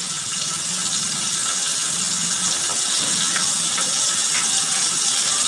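Steady sizzling hiss of oil frying in a kawali (wok), with a few faint pops around the middle.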